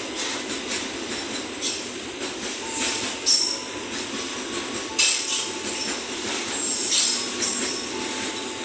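Container freight train's flat wagons rolling past, wheels running on the rails, with repeated bursts of high, hissing metallic wheel squeal; the loudest come about five and seven seconds in.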